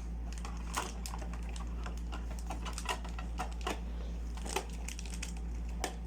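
Irregular light clicks and taps of small toys and plastic packaging being handled, roughly one or two a second, over a steady low hum.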